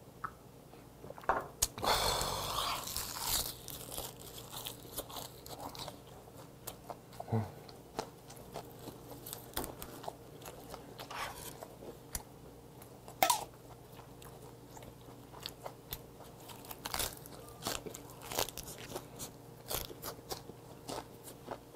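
Close-miked chewing and crunching of wraps of crisp napa cabbage with gwamegi, with irregular crisp crunches throughout. A louder rushing noise comes about two seconds in, and a sharp loud crunch comes about halfway through.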